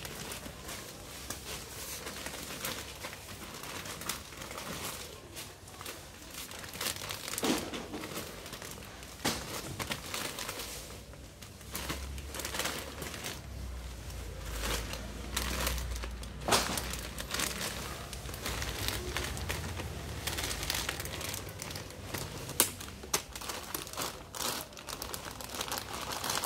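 Plastic bags of crisps crinkling and crackling as they are handled and pressed down into a plastic shopping basket, with irregular sharp crackles throughout.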